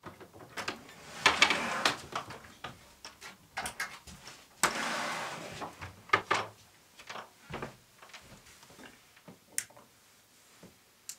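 Objects being handled: irregular light knocks and clicks, with two longer noisy scrapes, one about a second in and one about four and a half seconds in.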